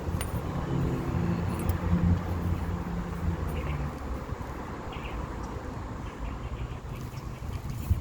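A motor vehicle's engine running as it passes by, a steady low hum that fades out about halfway through, leaving a faint steady hiss of traffic and outdoor noise.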